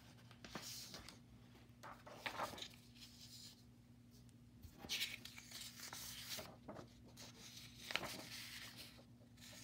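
Faint rustling and sliding of paper sheets, several brief swishes as a blank sheet is laid over a worksheet and shifted, over a steady low electrical hum.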